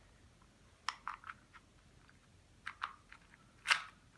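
2x2 Rubik's Cube being turned by hand: irregular light plastic clicks and clacks as the layers rotate, with a louder clack near the end.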